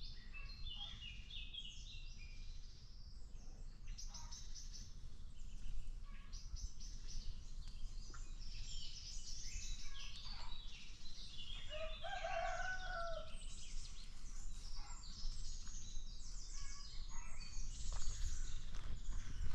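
Free-range chickens' yard with dense high-pitched chirping from birds throughout, and a rooster giving one short crow about twelve seconds in, over a steady low rumble.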